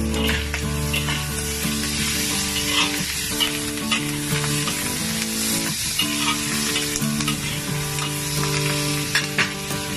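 Vegetables sizzling in a hot wok as they are stir-fried, with a spatula now and then scraping and clacking against the pan.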